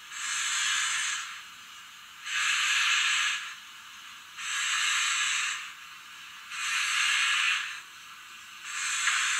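Roco HO-scale BR 52 steam locomotive model's sound decoder playing slow steam exhaust chuffs through its small speaker: long, even hisses about two seconds apart as the model creeps along.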